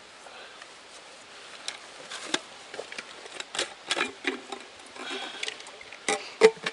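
Irregular clicks and knocks with some rustling as a Katadyn Vario hand-pump water filter is worked. The loudest knocks come near the end.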